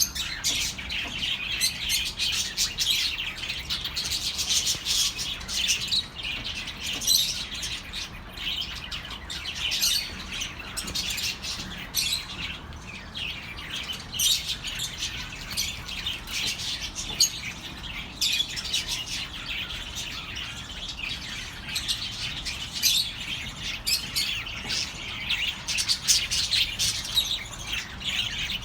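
A flock of budgerigars chirping and chattering: many short overlapping calls, continuous with no pauses.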